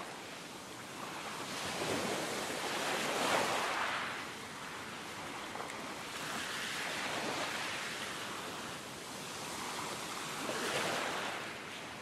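Ocean waves washing in and drawing back, three swells about four seconds apart.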